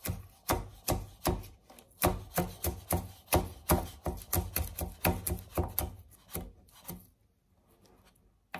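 Kitchen knife chopping green chillies on a cutting board: a quick run of blade knocks on the board, about three a second, that stops near the end.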